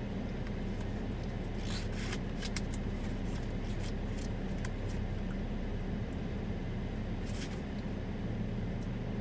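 Steady low rumble and hum of an idling car heard from inside the cabin, with a few brief crackling rustles around two seconds in and once more about seven seconds in.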